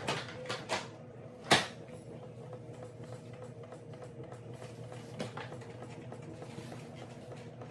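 Samsung front-load washer drum turning fast with a load of laundry while the machine balances the load for the spin. A steady motor hum and tone run throughout, with a few knocks from the tumbling load in the first couple of seconds, the loudest about a second and a half in, and one more about five seconds in.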